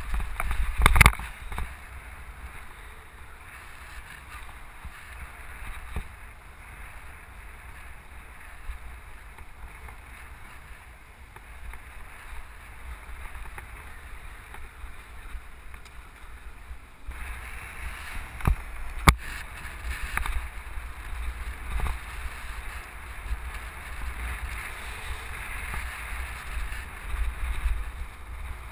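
Wind rushing over the microphone of a camera riding on a moving mountain bike, over a low rumble from the ride. Two sharp knocks, one about a second in and one past the middle, and the rushing grows louder after the middle.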